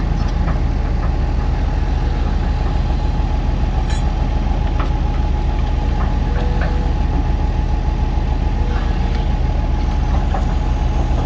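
Heavy diesel engine running steadily and loud, an even low throb that does not rise or fall, with a few faint clicks over it.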